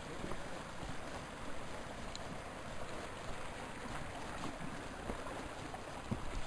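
Footsteps on dry fallen leaves, as faint scattered crunches over a steady rushing background noise.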